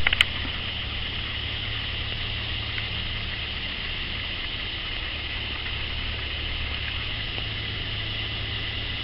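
A vehicle engine idling steadily, a low even hum, under a steady high hiss. A couple of sharp clicks come right at the start.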